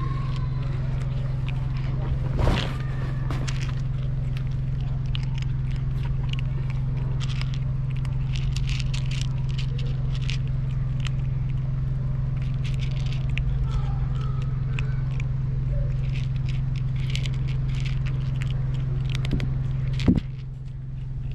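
Kittens crunching dry cat kibble close by, many small crackling clicks, over a steady low hum. A louder knock comes about two and a half seconds in and another near the end.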